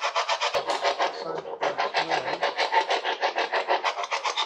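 Spirit box sweeping through radio frequencies: a fast, even chopping of static, about eight pulses a second.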